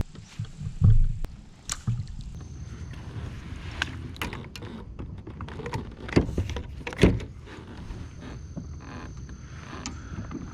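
Scattered knocks and clicks of fishing gear being handled in a kayak, over a steady low rumble.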